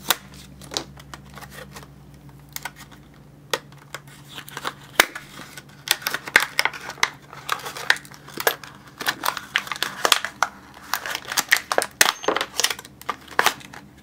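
Clear plastic blister packaging of a padlock being pulled and torn open by hand: a run of crinkles, crackles and sharp snaps, sparse at first and much busier from about halfway through.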